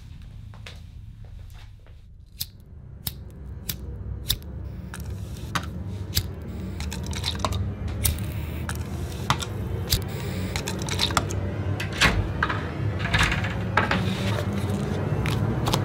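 Small objects being handled and set down on a table: a scattered run of sharp clicks and knocks, over a low rumble that swells steadily louder.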